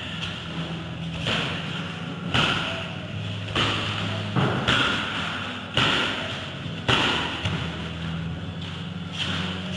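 About seven dull thuds and slaps, roughly a second apart, from blocks, strikes and footwork landing during a two-person karate drill, over a steady low hum.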